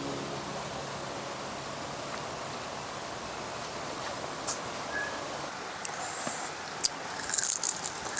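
Outdoor background with a steady, thin, high-pitched insect drone; from about seven seconds in, a run of crisp crackling crunches from a deep-fried tarantula being eaten.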